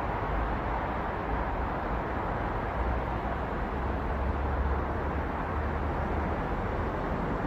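Steady wash of dense city road traffic: a continuous hiss of tyres and engines with a low rumble that swells in the middle.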